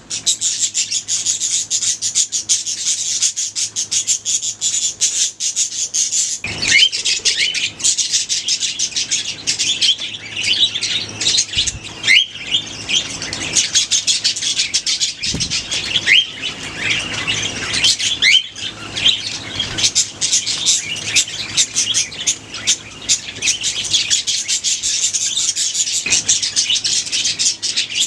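A colony of budgerigars chattering and chirping continuously, many birds at once, with a few sharp whistled calls that sweep up and down in pitch standing out above the chatter.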